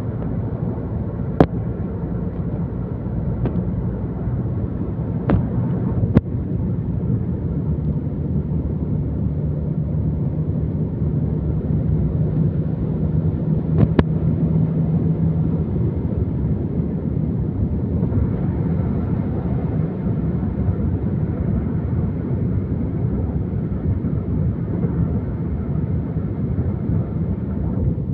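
Steady low rumble of a vehicle running, with several sharp clicks in the first half.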